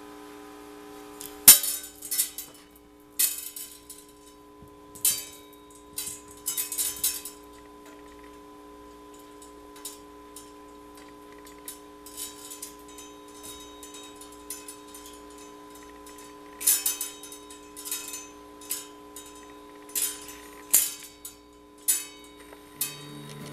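A string of bead necklace clattering and rattling in short bursts, about a dozen times, as a cat bats at it. A steady hum runs underneath.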